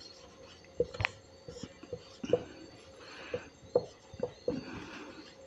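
Marker pen writing on a whiteboard: a string of irregular light taps and short, soft strokes of the tip on the board.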